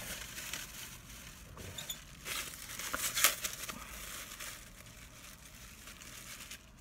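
Clear plastic wrapping being handled and crinkled, loudest with a few sharp crackles about three seconds in, then quieter rustling.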